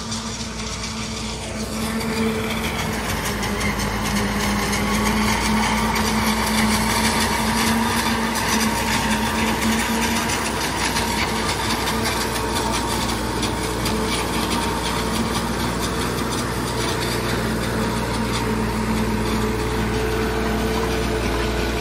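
New Holland tractor running under load, driving a silage harvester that is cutting and chopping standing maize: a steady engine and machine din with a whirring chopping noise, growing louder about two seconds in.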